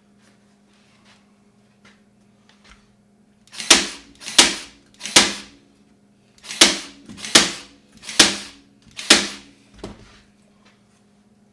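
Staple gun firing staples through fabric into a wooden frame: seven sharp, loud shots over about six seconds, then a fainter one. A steady low hum runs underneath.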